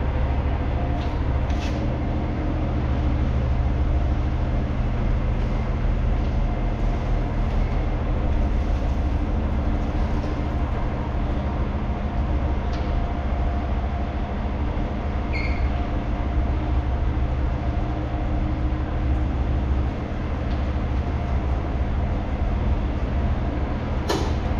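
Engine of the vehicle towing a travel trailer, running steadily at low revs as it backs the trailer in slowly. A brief high squeak comes near the end.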